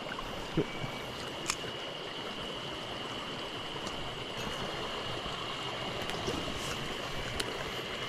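Shallow mountain stream running over stones, a steady rush of water with a faint high steady tone underneath. A couple of short sharp clicks come about half a second and a second and a half in.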